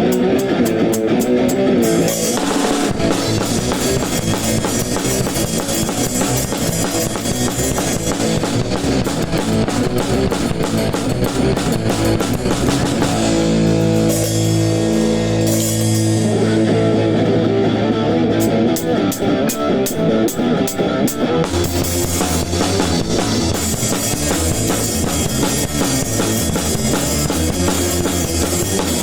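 Band playing ska: a PDP Encore drum kit with electric guitar and bass. About halfway through the drums stop briefly while a held chord rings, then the full band comes back in.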